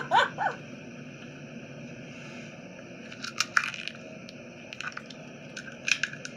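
A woman laughing briefly, then a steady hiss broken by scattered faint crackles and clicks from about three seconds in.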